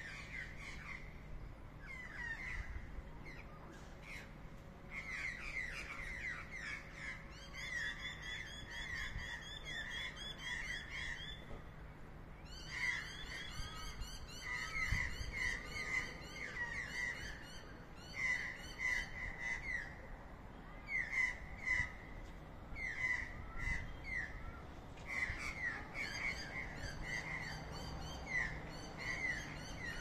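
Sulphur-crested cockatoos and pied butcherbirds squabbling in the trees. The calls come as quick runs of short notes, several a second, with brief pauses between the runs.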